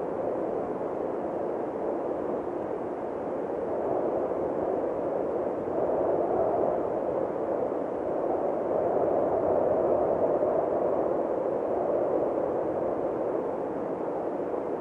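Ambient soundtrack of a light-and-sound installation: a steady, muffled rushing noise like wind that swells and eases slowly, with no distinct events.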